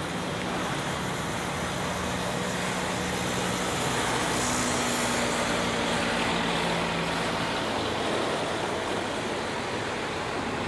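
Intermodal freight train of trailers on flatcars rolling past: the steady noise of steel wheels running on the rail and the cars rattling.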